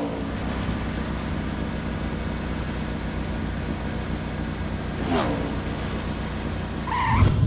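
Cartoon car engine sound effect running steadily, with a falling swoop at the start and again about five seconds in.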